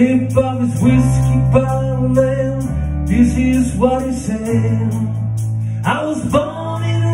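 Country song played live on acoustic guitar and keyboard, the keyboard holding low sustained notes, with a man singing the melody.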